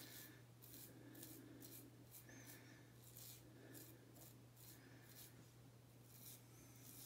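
Edwin Jagger DE89 double-edge safety razor with a Wilkinson Sword blade scraping stubble on the neck in a steady run of short, faint strokes during an against-the-grain pass, over a low steady hum.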